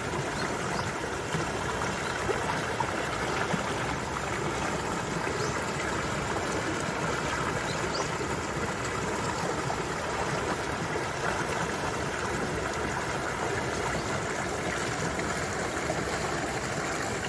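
Mountain valley stream running steadily, an even rush of flowing water.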